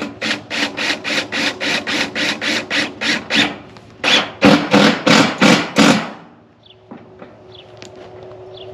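A fastener being driven through a ribbed steel siding panel into the wood framing: two runs of rapid, even strokes, about five a second, with a short pause between them.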